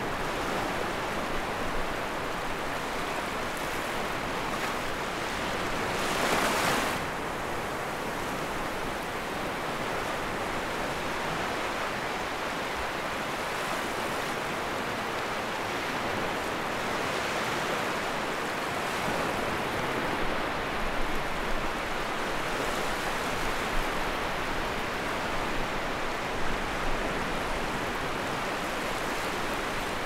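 Sea waves washing onto the shore: a steady surf wash, with one larger wave breaking about six seconds in and a few short, sharper splashes in the second half.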